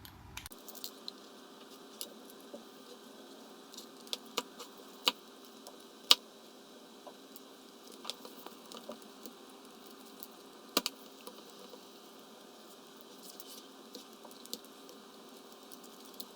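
Scattered small clicks and taps of plastic and metal parts of a GPTOYS S607 1/24-scale RC truggy being handled and taken apart by hand, with a few sharper knocks about five, six and eleven seconds in, over a faint steady hum.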